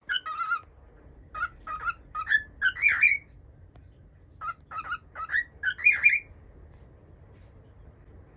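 Cockatiel whistling its quirky call twice: a run of short chirped notes ending in a longer upward-sliding whistle, then the same phrase again after about a second's pause.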